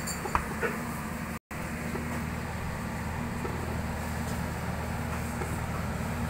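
Commercial ice maker running with a steady low machine hum, with a couple of light clicks near the start and a brief break in the sound about a second and a half in.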